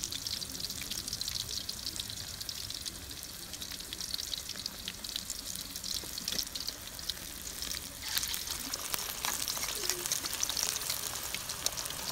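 Cambodian fish-ball patties deep-frying in hot oil in a steel wok: a steady crackling sizzle of many tiny pops that grows louder about eight seconds in.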